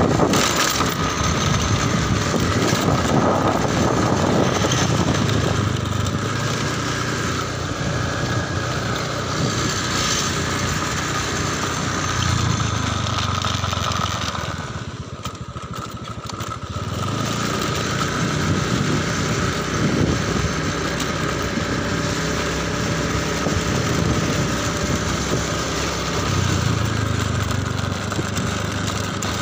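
Small motorcycle engine running while being ridden, its pitch shifting with the throttle. The engine note drops away for a couple of seconds about halfway through, then picks up again.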